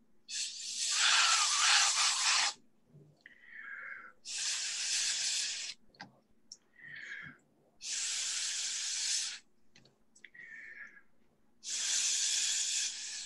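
Four long hissing puffs of blown air, each lasting about one and a half to two seconds and starting and stopping abruptly, blowing wet paint across the painting.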